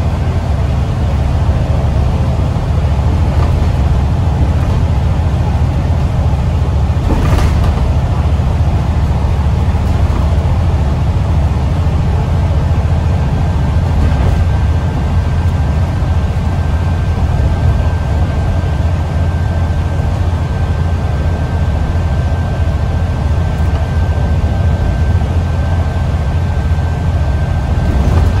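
Alexander Dennis Enviro 400 MMC double-decker bus cruising at speed, heard from inside the passenger saloon: a steady low drone of engine and road noise. A brief sharp noise comes about seven seconds in, and a faint high whine joins from about halfway.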